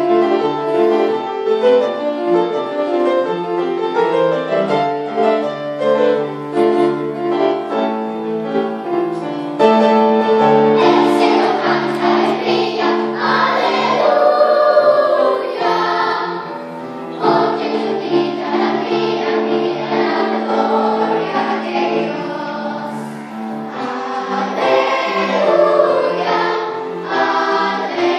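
Children's choir singing with upright piano accompaniment, the sound growing fuller and louder about ten seconds in.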